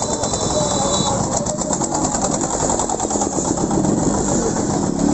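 Yamaha RX100's 98 cc single-cylinder two-stroke engine idling with a fast, even pulse while stopped in traffic. A steady high-pitched beep sounds for about the first second.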